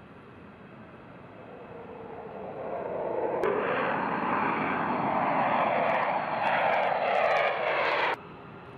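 Jet fighter engine noise from low passes: a roar builds over the first three seconds. It then jumps to a louder, closer roar from a pair of fighters passing overhead, which shifts in pitch and cuts off abruptly about a second before the end.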